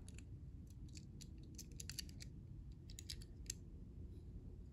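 Faint scattered clicks and light scratching from a small die-cast toy car being handled and turned over in the fingers, over a low steady background hum.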